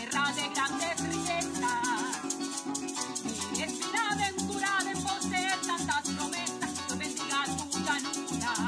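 A singer's voice with wide vibrato over a Venezuelan llanero ensemble: a llanero harp plucking bass and melody, a cuatro strumming, and maracas shaking a steady rapid rhythm.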